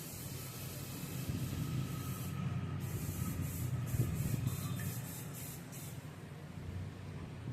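Water jet spraying with a steady hiss over a low hum, the hiss pulsing in the middle, typical of an air conditioner being washed during a service.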